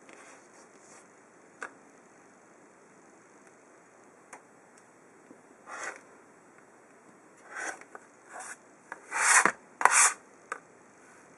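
Rotary cutter blade slicing through fabric along the edge of a ruler on a cutting mat, trimming patchwork triangle units square. The strokes are short and rasping: one about six seconds in, then several close together near the end, the longest and loudest about nine seconds in.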